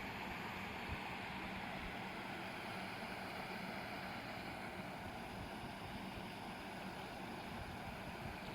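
River water rushing and babbling steadily.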